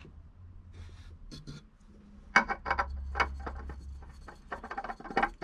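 Light clicking and rubbing from handling a new oil filter while its rubber O-ring is smeared with oil, starting about two seconds in.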